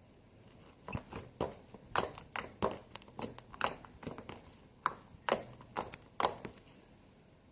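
Frozen slime being pressed and squished by hand, giving an irregular run of sharp crackles and pops that stops about a second before the end.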